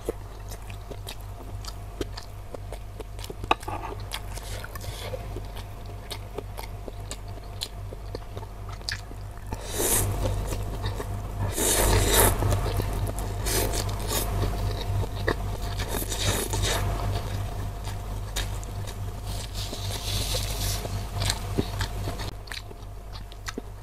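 Close-miked eating sounds: biting and chewing meat off a rib bone with small wet clicks, then from about ten seconds in a louder stretch of slurping thin noodles, followed by more chewing.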